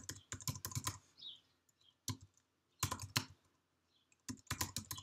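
Typing on a computer keyboard: quick bursts of key clicks separated by short pauses.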